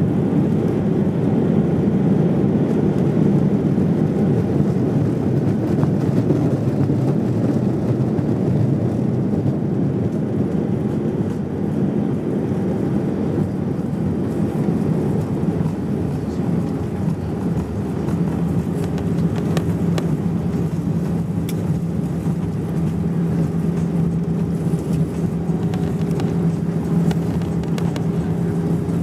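Cabin noise of an Airbus A320-200 on its landing rollout, heard from a window seat over the wing: a steady low rumble of engines and wheels on the runway that eases slightly as the jet slows. A steady low hum comes in about two-thirds of the way through.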